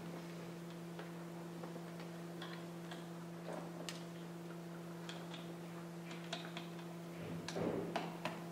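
Steady low electrical hum under scattered light clicks and taps from a signer's hands and clothing during sign language, with a louder brief rustle and knock near the end as he turns.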